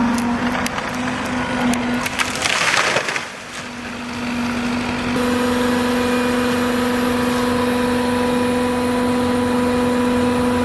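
Tree trunk cracking and splintering as the felled tree gives way, with a louder crash of wood about two and a half seconds in. After that an engine runs with a steady drone.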